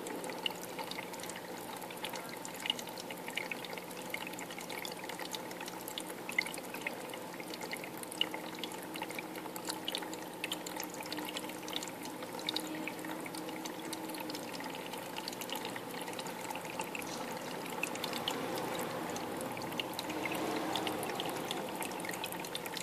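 Aquarium water trickling and pouring steadily, with many small bubbly pops and a low steady hum underneath.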